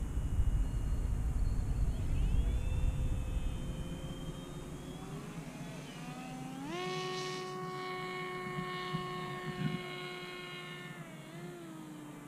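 Electric motor and propeller of a Volantex Ranger 757-4 RC plane in flight, a whine that rises sharply about halfway through as the throttle is opened, holds steady, then falls away near the end. Wind rumbles on the microphone in the first few seconds.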